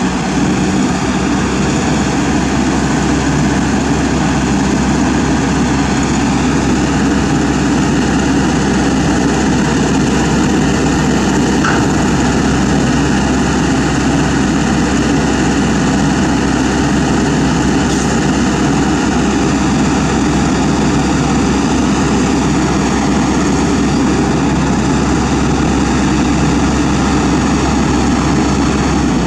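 Kobelco SK200 excavator's diesel engine running steadily at close range.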